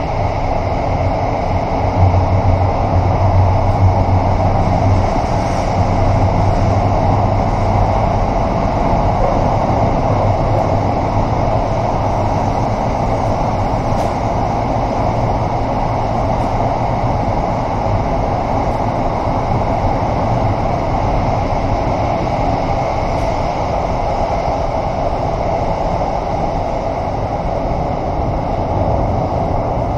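Kawasaki Sifang T251 metro train running through a tunnel, heard from inside the leading car: a steady rumble of wheels on rail, with a low hum that is strongest in the first ten seconds or so.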